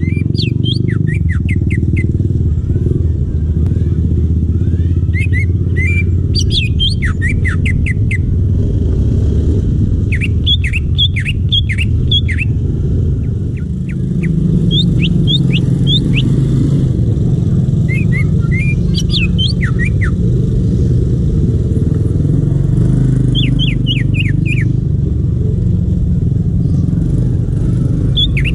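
Wild green leafbird (cucak ijo) singing in bursts of rapid, sharp chirping notes every few seconds. Under it runs a loud, steady low rumble like a motor.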